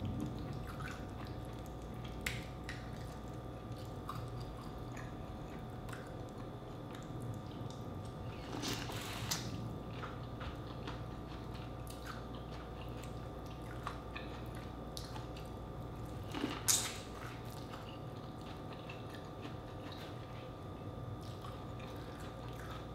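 Close-up mouth sounds of eating a deshelled seafood boil with corn: wet chewing, biting and smacking with scattered small clicks, and two louder bursts, one about nine seconds in and one near seventeen seconds, over a steady low hum.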